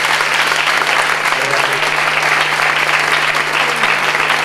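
An audience applauding, steady and sustained hand-clapping from many people.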